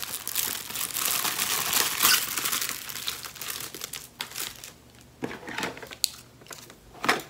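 Packaging crinkling as it is unwrapped and handled: dense crinkling for about three seconds, then sparser rustles and a few sharp taps, the loudest near the end.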